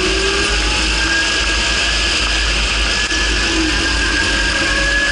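Fendt 415 Vario tractor's engine running steadily as the tractor drives, its pitch gliding slowly up and down, heard through a camera mounted low on the tractor's front under a loud steady rush and low rumble.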